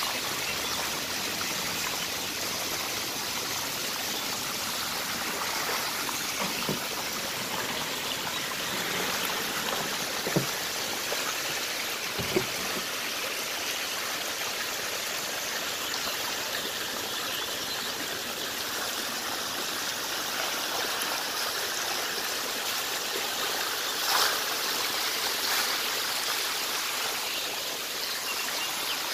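Steady splashing and churning of shallow water as a dense mass of magur catfish fingerlings thrash around a man wading through the tank. Two sharp knocks come about ten and twelve seconds in, and a brief louder burst of splashing about twenty-four seconds in.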